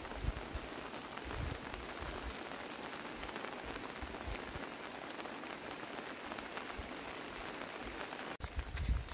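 Steady rain, a dense even patter of drops. Near the end the sound breaks off and louder low rumbling comes in.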